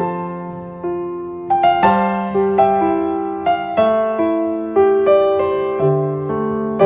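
Background piano music: gentle notes and chords struck about once a second and left to ring and fade.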